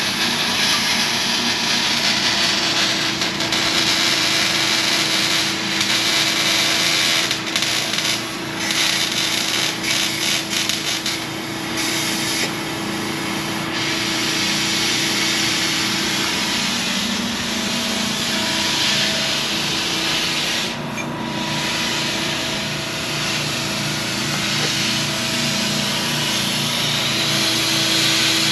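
Welding on an exhaust pipe: a steady crackling hiss that breaks off briefly several times as the welder stops and starts.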